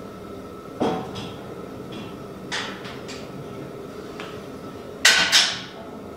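Sharp metal clanks and knocks from a steel bumper-mounted tire carrier being handled and fitted: one knock about a second in, a lighter pair around two and a half seconds, and the loudest double clank near the end.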